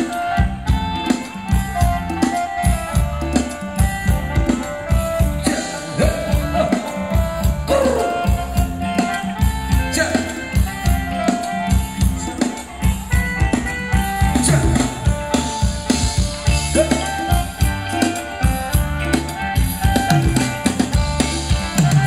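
Live band playing Thai ramwong dance music, with a drum kit keeping a steady, driving beat under melody instruments.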